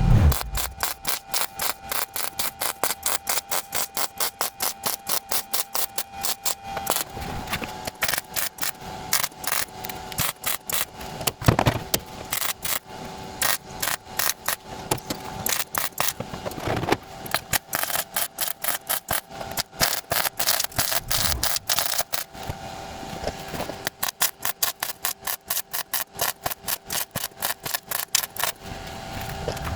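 Rapid back-and-forth strokes of a hand abrasive rubbing down a car body panel, about three strokes a second, pausing briefly about two-thirds of the way through. A faint steady hum sits underneath.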